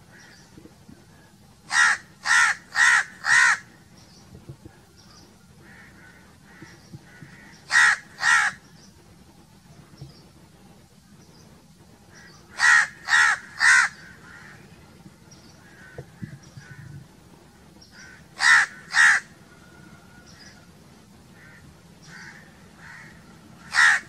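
House crows cawing: loud, harsh caws in short runs of four, then two, three, two and one, with fainter caws from other crows in between.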